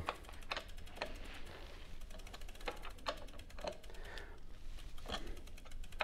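Faint, irregular metallic clicks and ticks as a steel crank arm bolt is tightened with a wrench, drawing the crank arm onto the square taper bottom bracket spindle.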